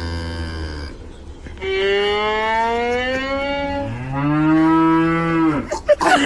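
Cow mooing in three long, drawn-out calls, the last two rising in pitch, with a violin being bowed alongside.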